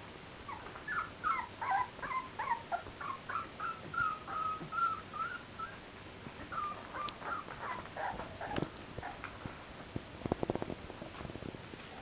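Clumber spaniel puppies whining, a string of short high-pitched cries that bend up and down in pitch, with a quick run of clicks about ten seconds in.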